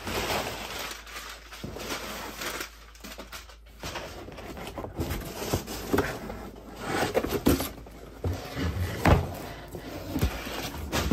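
A large cardboard shipping box being handled and opened: cardboard scraping and rustling as it is tipped over on the wooden bench and its flaps are pulled open, with several sharp knocks and thumps, the loudest in the second half, as an inner box is lifted out.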